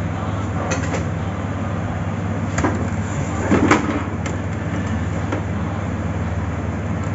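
Scattered plastic clicks and knocks from a printer's casing and scanner lid being handled, the loudest cluster about three and a half seconds in, over a steady low hum.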